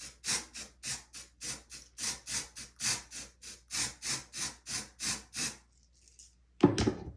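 Aerosol hair spray can being pressed in quick short bursts, about three a second, each a brief hiss, as it is misted over a wig's lace. A dull thump follows near the end.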